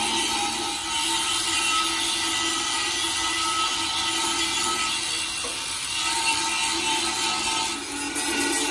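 Small electric angle grinder running, its disc grinding against steel plate with a steady whine over the rasp of the disc on the metal; the sound dips briefly near the end.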